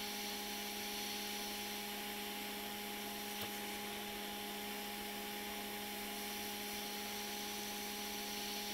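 Hot air rework station blowing steadily on a small surface-mount chip: an even hiss of air with a steady hum from its blower. The solder is slow to melt and release the chip, which the repairer bets is lead-free solder.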